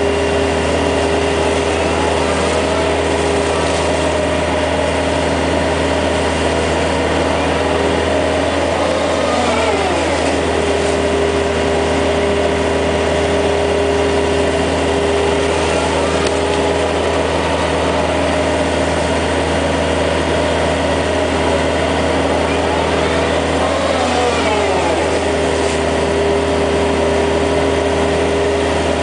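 Yanmar ViO55 mini excavator's diesel engine running steadily as the machine digs. Twice its pitch briefly dips and recovers.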